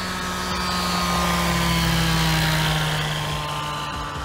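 Small 26-horsepower engine and propeller of a single-seat ultralight aircraft making a low pass: the steady engine drone swells to a peak about two seconds in, its pitch dropping slightly as it goes by.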